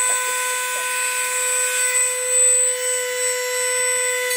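Handheld rotary tool (Dremel-style) with a small cutting disc running at a steady high-pitched whine, one held pitch with a stack of overtones, while cutting slots in a Miata's rear bodywork for wing brackets.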